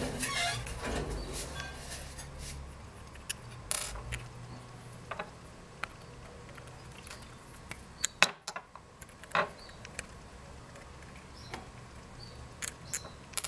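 Scattered small metal clicks and clinks of a screwdriver and the small cover screws being worked out of the diaphragm cover of a Brosol 2E carburettor, with a short cluster of clicks about two thirds of the way through.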